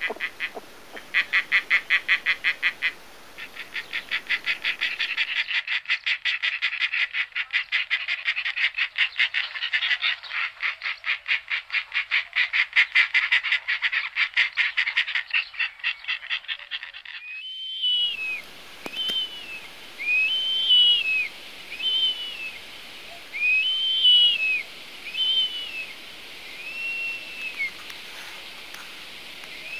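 Animal calls: a fast pulsing trill of many pulses a second that stops suddenly about two-thirds of the way in. It is followed by short arched, whistled calls repeated every second or so.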